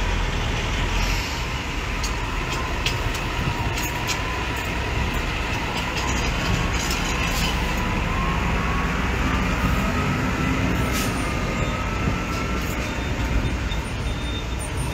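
Diesel semi-truck tractor-trailers rolling slowly past close by, their engines rumbling steadily along with tyre noise. A faint whine runs through it and rises slightly in pitch near the middle.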